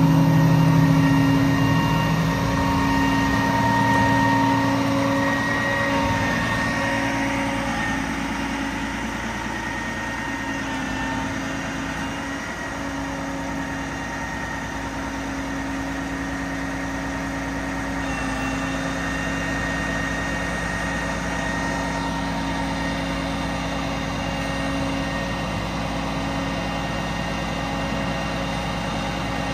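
A Freightliner M2 112's Cat 12.5 diesel engine runs steadily while its hydraulics drive the Stellar 28000 manipulator boom up. It is a steady drone with a few held tones over it, a little louder in the first few seconds.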